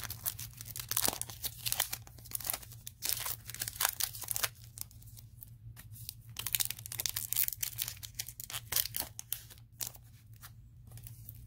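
Foil wrapper of a Yu-Gi-Oh booster pack being torn open by hand: irregular crinkling and tearing crackles, easing off for moments in the middle and near the end.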